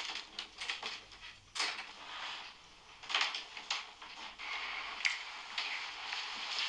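Scattered knocks and clicks of people moving about a room, a few louder than the rest, over a light steady hiss that fills in during the second half.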